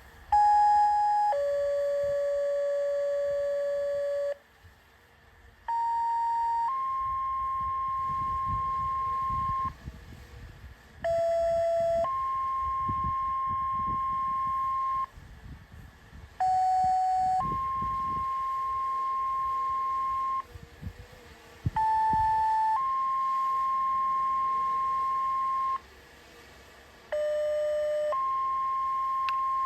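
Two-tone sequential radio paging tones, the kind sent over the air to activate tornado sirens. Six pairs, each a short tone of about a second stepping straight into a longer steady tone of about three seconds, with the pitch changing from pair to pair and a new pair about every five and a half seconds.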